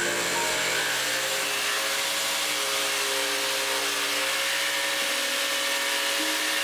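A table-mounted saw with a thin up-and-down jigsaw-type blade, running steadily as it cuts through plywood.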